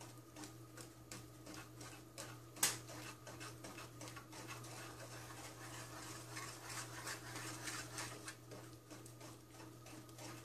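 Wooden spatula stirring and scraping a thick butter-and-sugar candy mixture around a stainless steel skillet, a quick run of faint strokes, with one sharp knock about two and a half seconds in. A steady low hum runs underneath.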